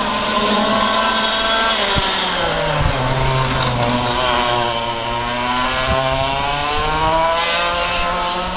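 Racing kart engine running hard, its revs falling and then climbing again about halfway through, as when a kart brakes into a corner and accelerates out.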